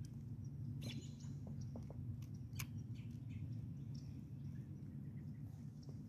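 Scattered short bird chirps, the clearest about one second and two and a half seconds in, over a steady low hum.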